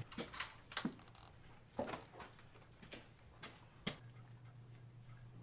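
A few faint, irregular clicks and knocks from handling a rifle scope, its elevation turret being turned by hand. The sharpest click comes about four seconds in.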